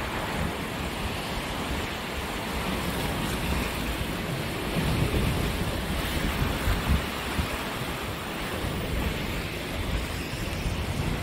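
Choppy sea surf washing and breaking around the bridge pillars and seafront, with wind buffeting the microphone in irregular low gusts.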